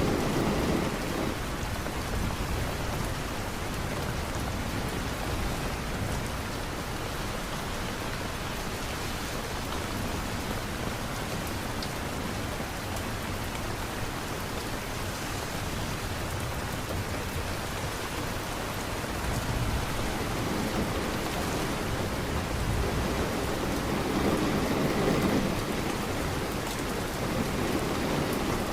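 Steady rain, a continuous even hiss, with low rumbles of distant thunder swelling near the start and again in the last third.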